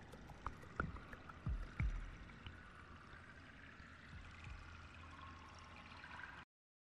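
Road and engine noise inside a moving car's cabin, with a few low thumps in the first two seconds, then a steady low hum. The sound cuts off suddenly about six and a half seconds in.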